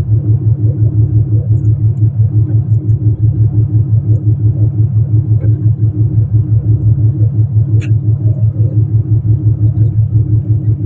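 A fishing boat's engine running steadily, a loud low throb with a fast, even pulse. A single sharp click sounds about eight seconds in.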